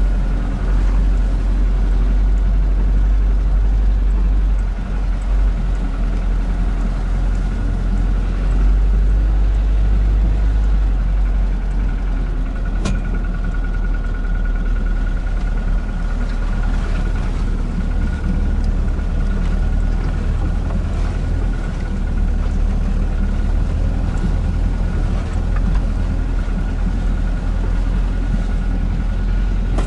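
UAZ Bukhanka van under way, its engine running with a steady low rumble and a thin steady whine above it; a single sharp click about thirteen seconds in.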